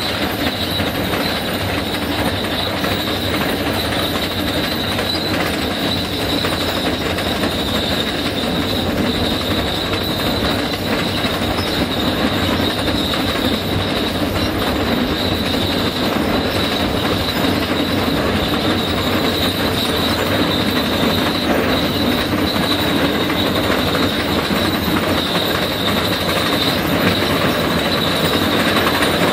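Tesmec 1475 rock saw trencher cutting rock: a steady, loud mechanical grinding and clatter of the saw cutting through stone and the machine running, with a constant high-pitched metallic squeal over it.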